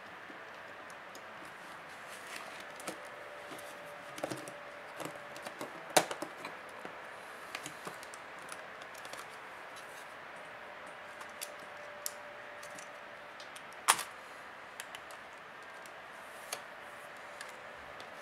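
Scattered small clicks and snaps of plastic and metal as the inner frame of a Samsung Galaxy Tab 3 tablet is worked loose by hand, its clips letting go. Two louder sharp snaps come about six and fourteen seconds in, over a faint steady hiss.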